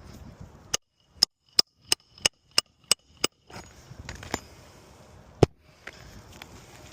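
Hammer driving a roofing nail through asphalt shingles: a quick run of eight ringing strikes, about three a second, then two more single blows, the last the loudest.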